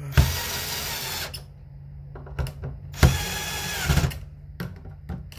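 Cordless drill driving the steel mounting screws of a 30 amp dryer receptacle into a plastic electrical box, in two runs of about a second each. The motor's whine drops in pitch as the second screw seats. Short knocks come between the runs as the bit is set on the next screw.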